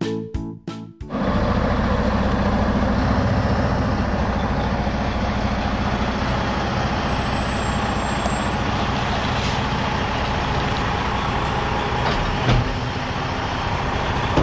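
Piano intro music ends about a second in, then a diesel engine idles steadily with an even low pulse.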